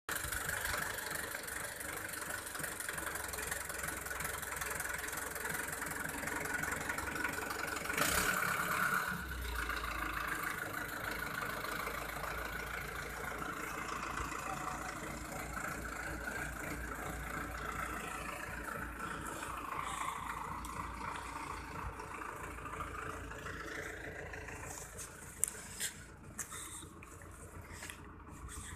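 Diesel farm tractor engine running steadily as it pulls a heavily overloaded sugarcane trolley. The sound gets louder for about a second and a half around eight seconds in, after which the low engine hum shifts.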